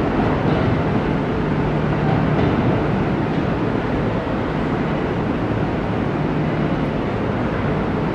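Kintetsu electric train running through the station, a steady rumble with a low hum underneath.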